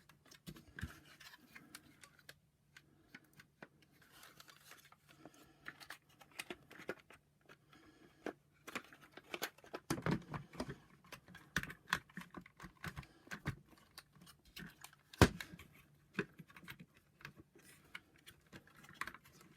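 Small plastic clicks, taps and scrapes of the vacuum's power nozzle motor and housing being handled and jiggled into its seat, with one sharper knock about fifteen seconds in.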